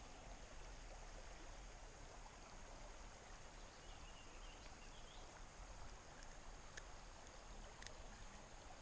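Near silence: faint, steady creek water flow, with a few soft ticks in the second half.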